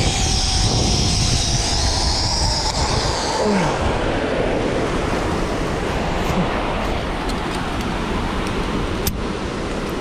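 Rushing wind on the microphone of a rider speeding down a zipline, with a high whine from the trolley running along the cable for the first three seconds or so.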